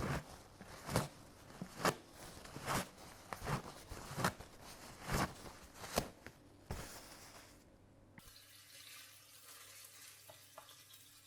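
A run of about ten sharp knocks of kitchen utensils or crockery, roughly one a second. About eight seconds in they stop abruptly and a tap starts running steadily.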